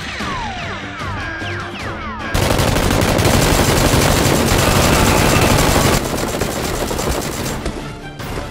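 Rapid automatic gunfire sound effects over background music. Short falling whistles come first, then about two seconds in a dense, loud burst of continuous fire lasting several seconds, which thins to quicker, fainter shots near the end.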